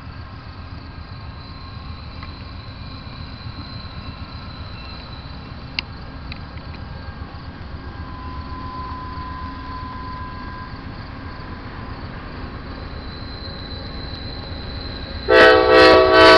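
Low rumble of an approaching diesel freight train, slowly growing louder. About fifteen seconds in, the lead Norfolk Southern locomotive's multi-chime air horn starts up loudly in short blasts.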